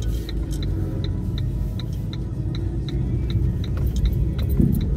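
A car's turn-signal indicator ticking evenly, about two and a half ticks a second, over the low rumble of engine and tyres heard inside the cabin, with a low thump near the end.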